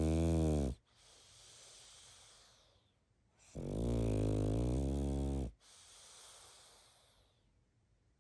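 Sleeping pug snoring: two loud, rasping snores, the second longer, each followed by a softer, breathy hiss of the out-breath.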